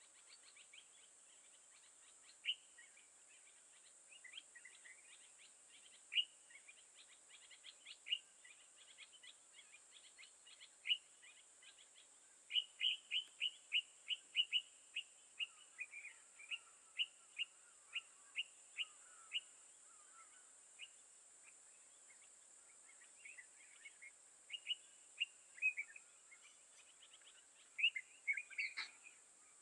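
Birds calling in many short, sharp chirps, with a quick run of repeated chirps from about twelve to nineteen seconds in and a cluster near the end, over a steady high-pitched hiss.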